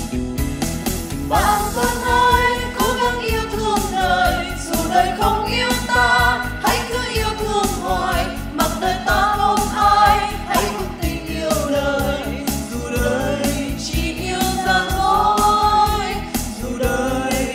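Strummed acoustic guitar accompanying several voices singing together; the voices come in about a second in.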